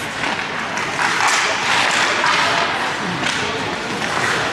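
Ice hockey skates scraping and carving on the ice, with sharp clacks and knocks of sticks and puck mixed in.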